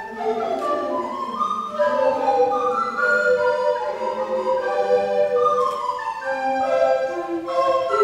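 A recorder ensemble of recorders of several sizes playing in several parts, with held notes overlapping and moving from note to note.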